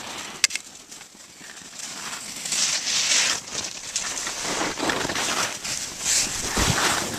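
Skis hissing through soft powder snow in a series of swooshing turns, with a sharp click about half a second in.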